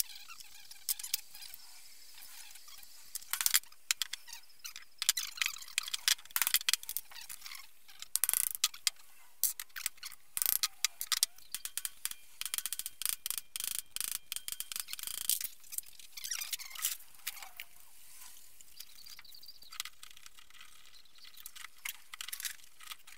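Metal tools and differential parts being handled on a workbench: irregular light metallic clicks, taps and clinks, with a brief squeak twice.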